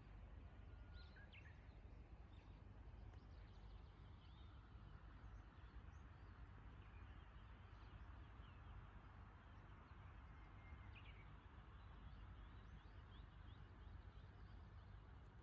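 Faint birds chirping and tweeting in short scattered calls over a low, steady rumble of wind.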